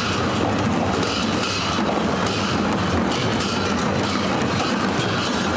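Steady, loud din of a large festival crowd packed in the street, with scattered faint knocks in the mix.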